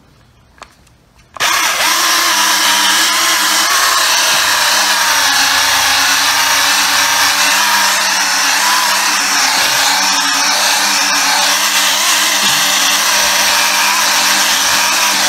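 Cordless 12-volt polisher starting about a second and a half in, then running steadily with its buffing pad working polishing compound over clear-coated paint to cut out scratches.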